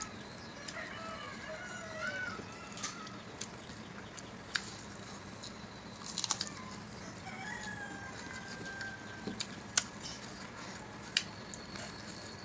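Hand-eating sounds: fingers working rice on plates, with sharp clicks from chewing and lip smacks at irregular intervals. Birds call in the background in short gliding calls, early on and again past the middle.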